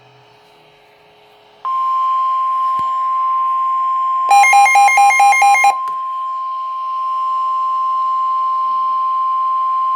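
NOAA Weather Radio warning alarm tone: a loud, steady single tone of about 1050 Hz that begins a couple of seconds in, signalling that a warning broadcast follows. Just past the middle, a fast series of about six beeps lasting a second and a half sounds over the tone.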